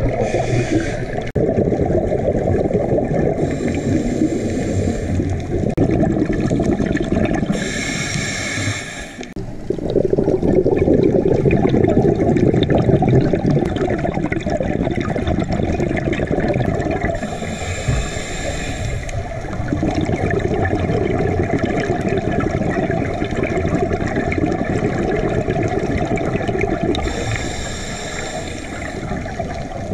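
Scuba diving heard underwater: the steady gurgle and rush of regulator exhaust bubbles. A higher hiss comes and goes five times, each lasting a second or two.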